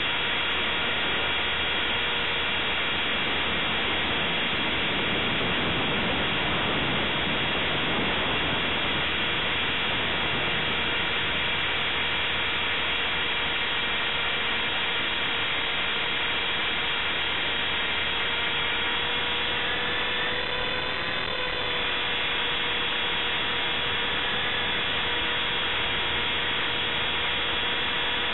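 Align T-Rex 450S electric RC helicopter in flight, heard from its onboard camera: a steady high whine from the motor and gears over the rush of the rotors. The pitch rises briefly and settles again about twenty seconds in.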